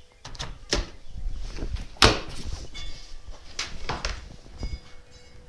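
Plastic Sterilite storage tote lid being unlatched and lifted off: a string of sharp plastic clicks and knocks, the loudest about two seconds in.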